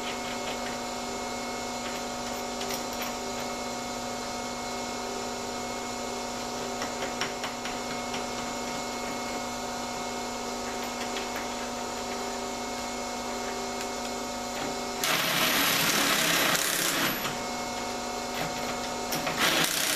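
A steady mechanical hum with several fixed tones, then two short bursts of a power tool running, each about two seconds long: one about fifteen seconds in and one near the end.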